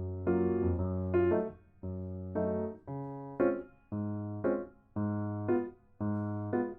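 Background music: a gentle piano or electric-piano tune, with notes and chords struck about once a second and fading between strikes.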